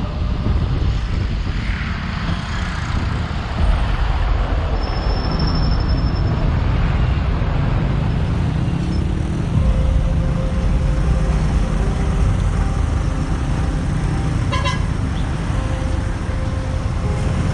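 Road traffic heard while riding a motorcycle taxi: a steady low rumble of engine and road noise, with a short vehicle horn toot near the end.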